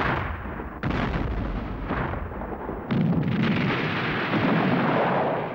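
Black-powder cannon firing and explosive charges going off: three heavy blasts, at the start, about a second in and about three seconds in, each trailing off in a long rumble.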